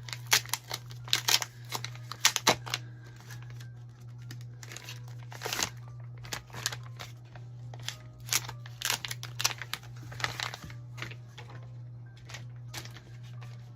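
Plastic wrapping on a K-pop album crinkling and tearing as it is unwrapped by hand, in irregular clusters of sharp crackles.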